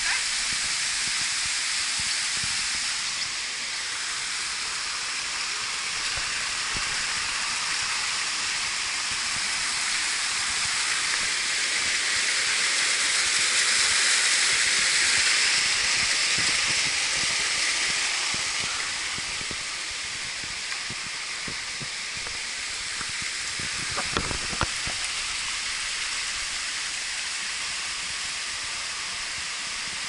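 A rocky stream cascading, a steady rushing hiss that swells around the middle and eases toward the end. A few short knocks about 24 seconds in.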